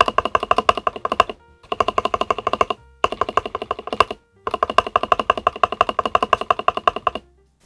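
Fast typing on a LEOPOLD FC660MBT mechanical keyboard with PBT keycaps: dense runs of key clacks, about ten a second, in four bursts broken by short pauses, the last burst the longest and stopping shortly before the end.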